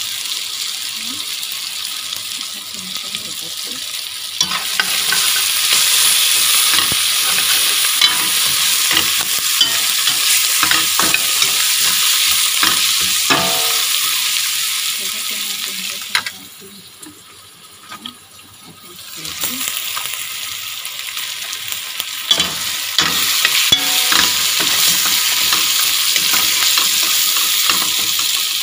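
Chopped tomatoes, onion and tomato paste sizzling in hot oil in a stainless steel pot while a spoon stirs and scrapes against the pot, making scattered clicks. The sizzle grows louder about four seconds in, drops away for a couple of seconds past the middle, then comes back.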